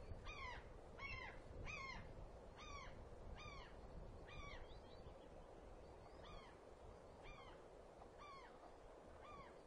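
Juvenile white-tailed eagle calling: a series of short, high, downward-arching notes, about one a second, growing fainter and further apart.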